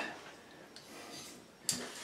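Quiet handling of a tape measure against a drywall wall, with one sharp click near the end.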